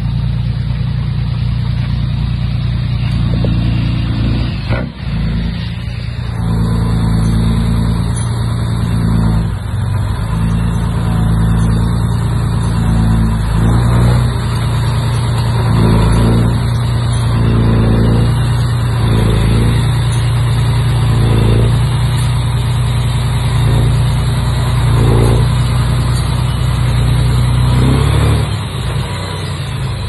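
Komatsu D31P crawler bulldozer's diesel engine running steadily under load. Short knocks recur every second or two through the second half.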